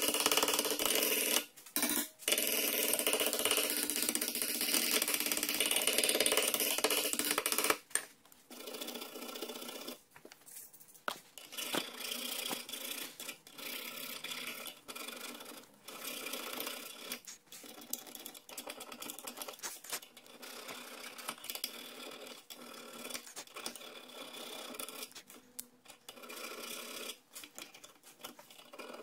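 Power wire brush running against a rusty steel brake caliper bracket, a loud continuous scrubbing with two short breaks, which stops about eight seconds in. After that, rust is scraped by hand from the bracket's pad slots with a flat steel blade: irregular scraping strokes with small metal clicks.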